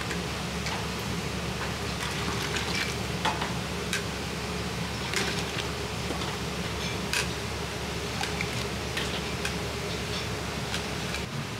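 Busy wok-station noise: a steady low rumble from the gas burner and kitchen exhaust, with scattered light clinks of a metal ladle against the wok and a faint sizzle of frying. The low rumble drops away near the end.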